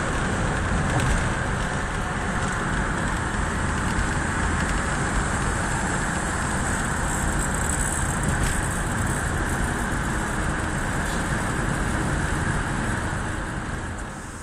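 Steady road and engine noise heard inside a car driving at highway speed. It fades out near the end.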